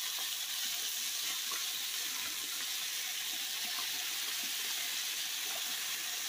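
Sliced chicken sizzling steadily in a hot skillet as hot sauce is squeezed over it.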